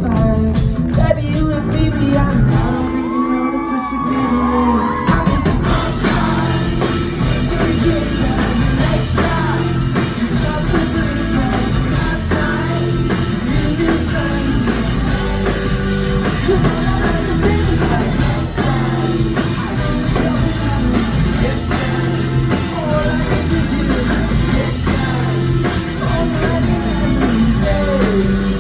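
Pop-rock band playing a song live with sung vocals, heard in a large hall. The bass drops out briefly about three seconds in, then the full band comes back in.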